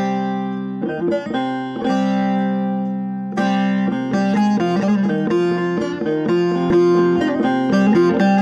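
Instrumental Turkish folk music on the bağlama: a run of quickly plucked notes over a steady low drone.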